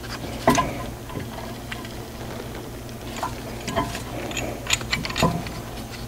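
Scattered light metallic clicks and clinks of a threaded caliper piston tool being handled against a Honda Accord's rear brake caliper, about half a dozen, irregularly spaced, a few with a short ring, over a low steady hum.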